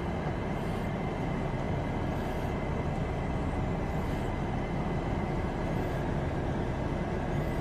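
A car running at low speed, heard from inside the cabin: a steady mix of engine and road noise.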